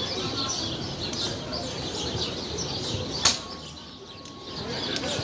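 Small birds chirping over a faint murmur of distant voices, with one sharp click about three seconds in: a wooden xiangqi piece set down on the board.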